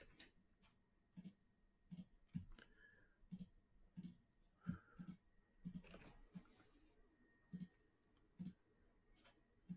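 Faint computer mouse clicks, a dozen or so at an uneven pace, as a list is copied and pasted into a spreadsheet.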